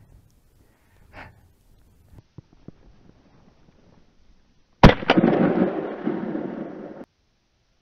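A single shot from an MP-155 semi-automatic shotgun about five seconds in: a sharp, loud crack, a weaker crack right after it, then about two seconds of rolling noise that cuts off abruptly. Before it, only faint rustling.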